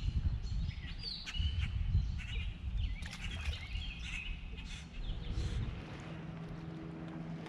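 Songbirds chirping and calling in short, quick high phrases over a low rumble. A steady low hum comes in a little past halfway.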